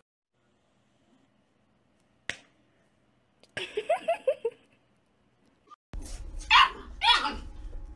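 A dog barks twice in quick succession near the end. Earlier, about halfway, comes a short run of higher yips, and a single click a little over two seconds in.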